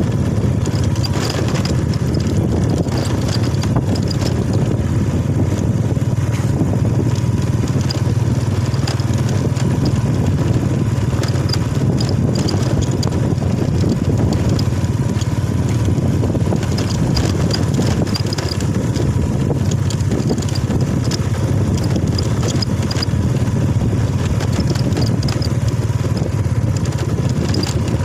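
Motorcycle engine running steadily while riding, with even road and wind noise and no change in pace.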